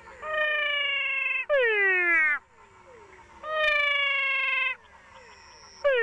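Male Physalaemus cat frogs calling, sounding like crying cats: long mewing notes held at a steady, slightly falling pitch, each followed by a shorter note that slides steeply down. Two such pairs sound, over a chorus of fainter falling notes from other frogs.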